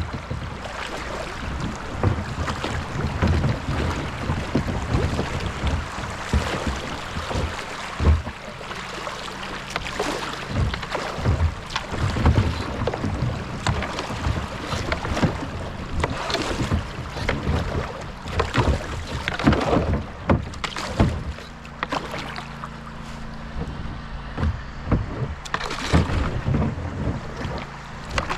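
Kayak being paddled down a creek: irregular paddle splashes and knocks over running water.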